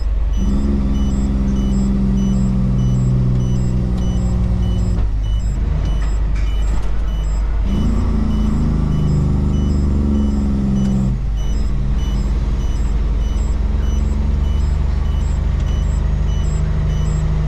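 Kenworth road-train prime mover's diesel engine pulling, heard from inside the cab. Its note cuts out briefly twice, about five and eleven seconds in, as gears are changed. A faint high beep repeats about twice a second.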